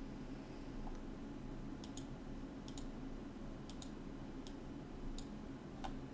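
Computer mouse clicking about six times, several as quick double clicks of press and release, over a faint steady low hum.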